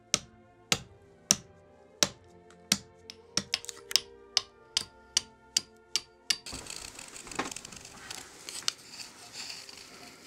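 Hand axe chopping a wooden spoon blank on a log block: sharp strikes about twice a second that come quicker around the middle. About six seconds in they give way to the softer, steady scraping of a knife whittling the spoon.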